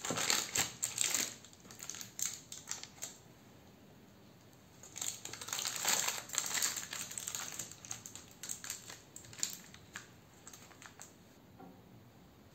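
Crinkling and light clicking as gloved hands handle baking paper and press chocolate bars into place on a cake in a loaf pan, in two bouts: one at the start and a longer one a few seconds later.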